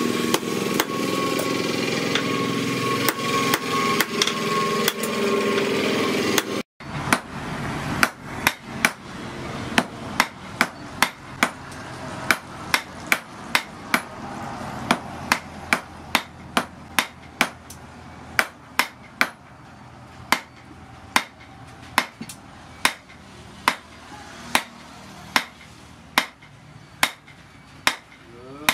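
Hand hammer forging a glowing piece of rebar on a steel post anvil: a long run of even, ringing strikes at about one to two a second. A steady hum sits under the strikes for the first several seconds and stops about seven seconds in.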